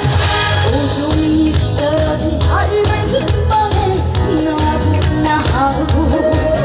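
A trot song performed live: a woman sings a wavering, gliding melody over a band backing with a steady beat.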